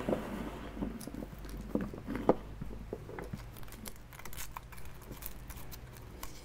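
Foil wrapper being handled and peeled off a chocolate surprise egg by hand: scattered soft crinkles and taps, growing denser and crisper in the second half.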